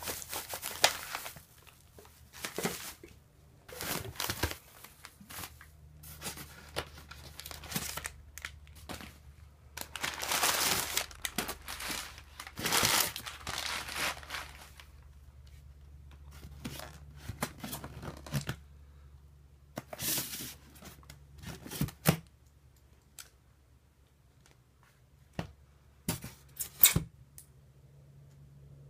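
Newspaper and plastic wrap crinkling and tearing in irregular bursts as wrapped containers are handled and lifted out of a styrofoam box. In the second half the rustling thins out to a few short sharp knocks from the containers and box, over a faint steady low hum.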